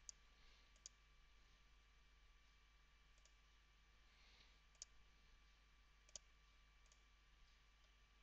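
A handful of faint computer mouse clicks, spaced irregularly a second or more apart, against near silence.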